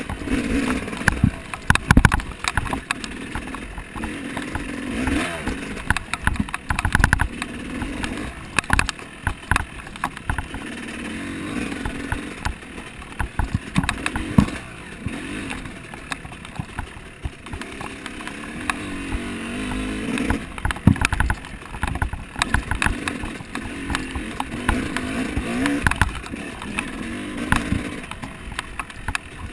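Off-road vehicle travelling a rough trail: a motor note that rises and falls every few seconds, with frequent knocks and rattles from the bumps.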